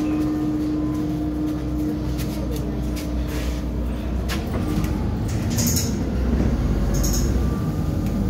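Inside a MAZ-203 city bus: the engine runs with a low rumble and a steady whine that fades out about halfway, over knocks and rattles of the body. Near the end come two short hisses of air about a second apart.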